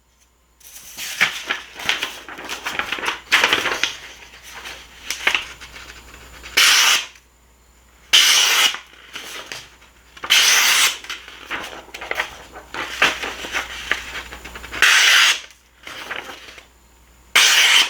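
CJRB Gobi folding knife's AR-RPM9 powder-steel blade slicing through a sheet material in a sharpness test: several short swishing cuts, with quieter rustling of the material between them.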